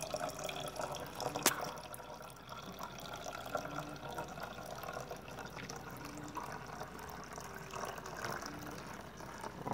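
Liquid poured from a cup into a plastic bottle in a steady stream as the bottle fills, with a single sharp click about a second and a half in.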